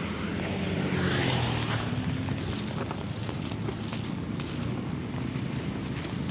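A motor vehicle's engine, loudest a little over a second in and then easing off into steady outdoor noise.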